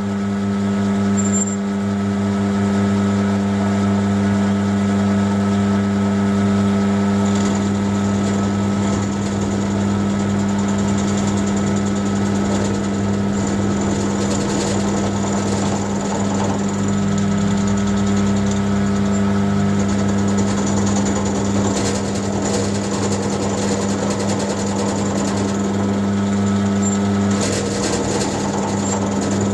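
Bench mill-drill running, its electric motor humming steadily while a cutter mills a flat spot into steel bar, with rough cutting noise over the hum that varies as the work is fed.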